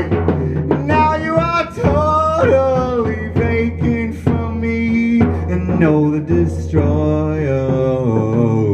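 Live band music: electric guitar and drum kit, with a voice singing long held notes.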